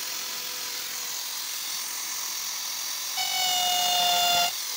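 Corded electric drill in a drill stand running at full speed with a steady whine, its speed control not working. About three seconds in, a louder, slightly falling squeal lasts a little over a second as the small bit is pressed into the 1.5 mm-wall stainless steel tube, turning too fast for stainless steel.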